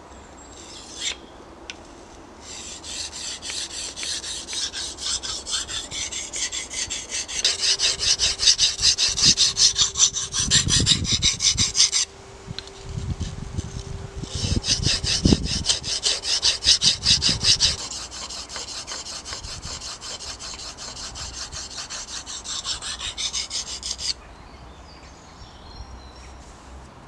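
TBS Boar knife's Scandinavian-grind blade stroked rapidly back and forth on an oiled combination whetstone, a steady rhythmic scraping, raising a burr along one side of the edge. The strokes break off briefly about halfway and stop a few seconds before the end.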